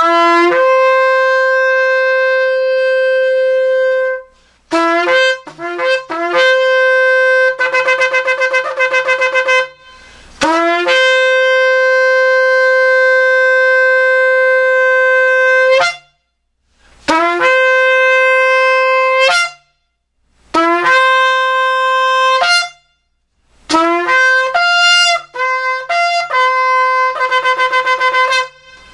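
A 42-inch horn shofar with a newly made mouthpiece being blown in a series of blasts. Long held notes scoop up in pitch as each one starts, and there are short single blasts and two rapid pulsing runs of quick staccato notes. Near the end a few notes jump to a higher pitch.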